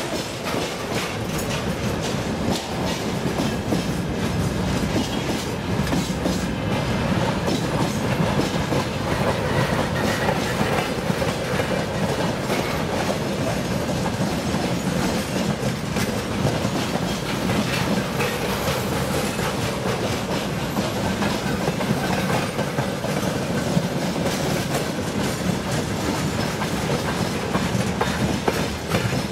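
Freight train wagons rolling past close by: a steady rumble with the wheels clattering rhythmically over the rail joints.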